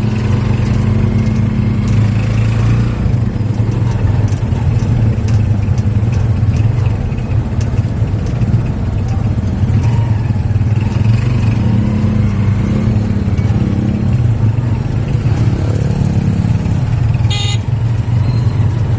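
Motorcycle-tricycle (tuk-tuk) engine running steadily, heard from on board while riding. Its low drone rises and falls a few times as it speeds up and eases off.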